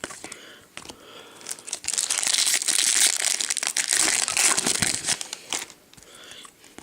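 Trading-card pack wrapper crinkling and crackling as it is handled, loudest for about four seconds in the middle, with lighter rustling before and after.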